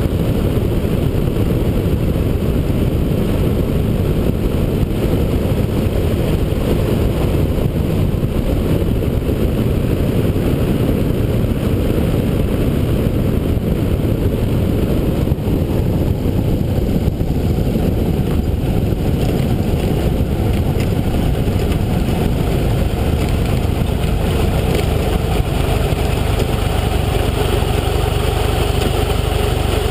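Ultralight trike's engine and propeller running steadily with wind rushing over the microphone on the landing approach. Near the end, once the trike is rolling on the dirt strip, the engine settles to a lower, steadier idle hum.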